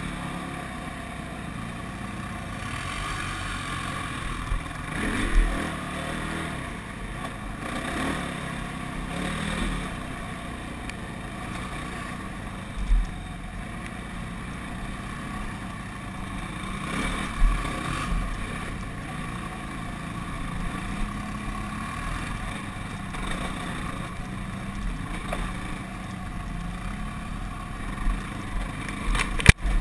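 ATV engine running steadily as the quad rides along a rough dirt trail, with a few sudden thumps, the sharpest near the end.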